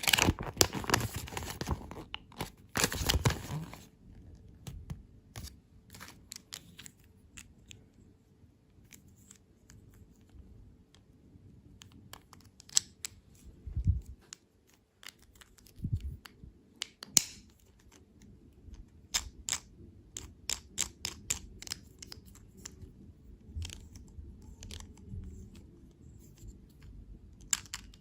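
Candy packaging being torn open and crinkled for about the first four seconds, then scattered small clicks and taps as the candy and wrappers are handled.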